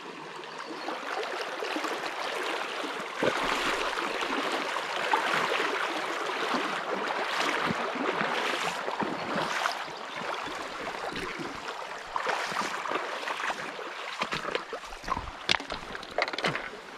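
Fast, shallow river water rushing through a riffle chute, rising and falling in strength, with a few sharp short sounds near the end.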